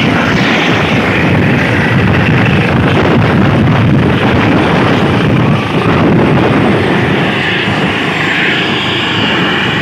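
A helicopter running close by on the ground, a loud, steady rush of rotor and turbine noise. Its downwash is blowing dust and buffeting the microphone.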